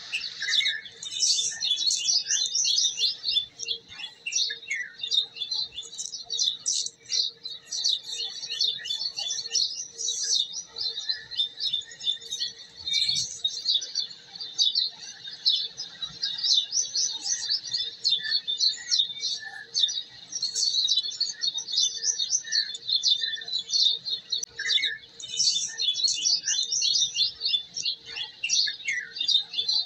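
Many small birds chirping and twittering rapidly and continuously, over a faint steady hum.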